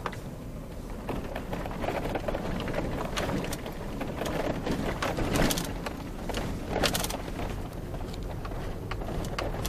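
A vehicle driving on a rough dirt road: a steady low rumble with many knocks and rattles, heaviest around the middle.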